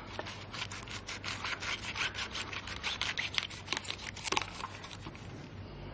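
Knife sawing through the tough leaves of a globe artichoke to cut off its top third: a quick run of crisp crunching strokes, several a second, thinning out near the end.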